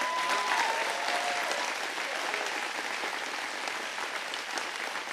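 Crowd applauding, easing off gradually, with one long cry sliding down in pitch over it in the first second or so.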